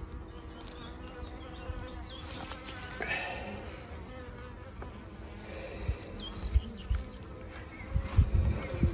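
Honeybees buzzing over an open hive, a steady hum. A few low thumps come in the second half.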